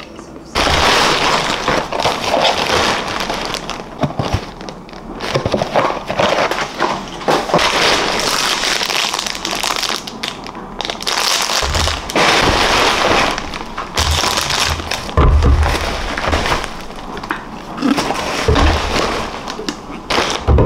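Thin plastic shopping bag and wrapping crinkling loudly as groceries are pulled out, with a few dull thuds as items are set down on the table in the second half.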